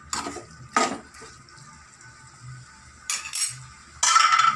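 Steel spoon knocking and scraping against a coated kadai while stirring chicken in masala: two sharp knocks in the first second, a scrape about three seconds in, then a louder clatter with a brief metallic ring near the end.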